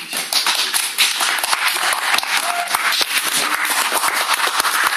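A small group of people clapping their hands in applause, starting suddenly and keeping up a dense, steady patter.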